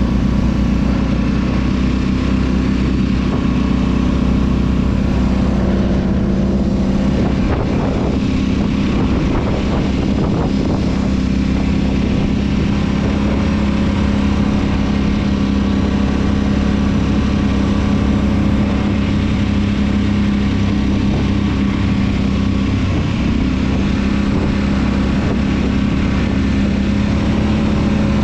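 ATV engine running steadily under way, its note holding nearly constant, with a brief dip in pitch near the end.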